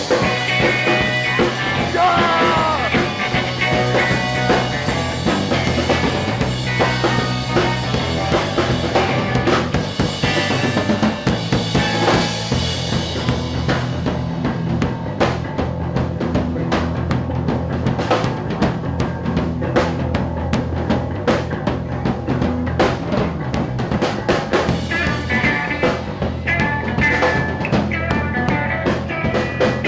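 A rock band playing an instrumental passage, with drum kit (bass drum and snare) over steady bass notes and bending lead lines early on. About halfway through the high wash thins and the drum hits stand out more sharply.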